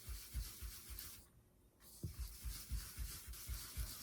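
A brush rubbing blush onto painted wood in quick, short strokes, about four a second. The strokes stop briefly just after a second in, then resume.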